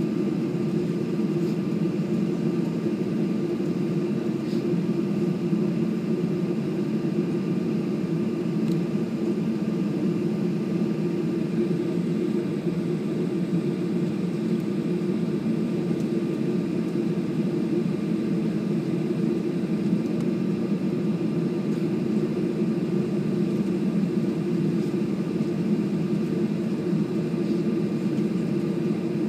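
Steady drone of an airliner's engines at low power during taxi, heard from inside the passenger cabin, with a few faint steady whining tones above the low hum.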